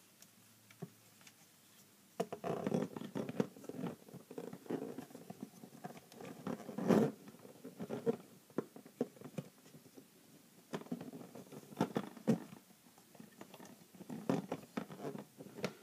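Hard plastic toy pieces being handled and repositioned by hand, starting about two seconds in: an irregular run of small clicks, rattles and scrapes as parts are moved and snapped into place.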